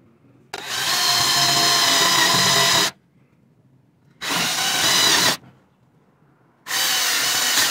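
Cordless drill with a spade bit boring a counterbore into a wooden board edge, running in three bursts: a long one of about two and a half seconds, a short one of about a second, and a third starting near the end. The bit's point is bent, so it wobbles in the cut.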